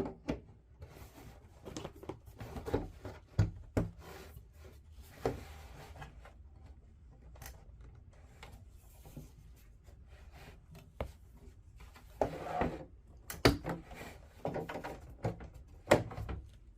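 Plastic pipe pieces of a NECA Toon Sewer Lair playset being handled and pushed into holes in the playset wall: scattered clicks and knocks with rubbing in between.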